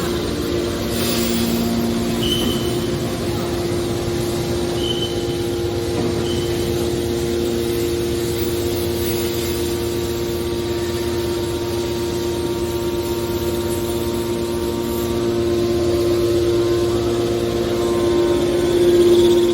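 Metal scrap compactor baler running: a steady machine hum with one constant tone, with three brief high squeaks in the first third and a slight swell in loudness near the end.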